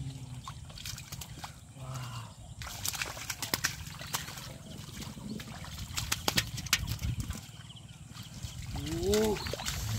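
Sloshing and splashing of feet and hands in shallow muddy water, with a run of sharp splashes and slaps from about three to seven seconds in. A short pitched call that bends up and down comes near the end.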